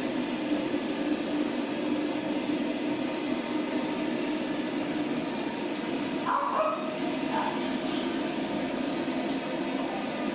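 Floor-standing pet grooming dryer blowing steadily, with a dog giving two short barks about six and seven seconds in.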